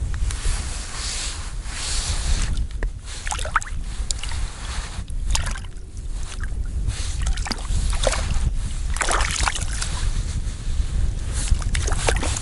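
Wind buffeting the microphone in a steady low rumble, over repeated short rustling and scraping sounds of winter clothing and hands working the line at an ice-fishing hole.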